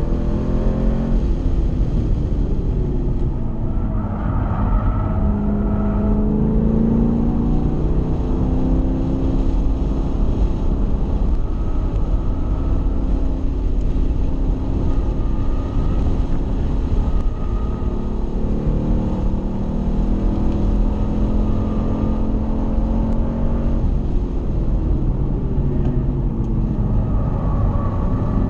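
Chevrolet Camaro SS's 6.2-litre V8, heard from inside the cabin at track speed. Its pitch rises and falls again and again as it accelerates, lifts and shifts through the corners, over steady wind and road noise.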